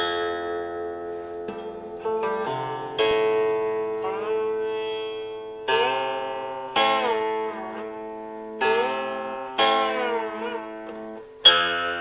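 Music: a slow plucked zither melody, single notes struck every one to two seconds and left to ring, several of them bent in pitch as they sound.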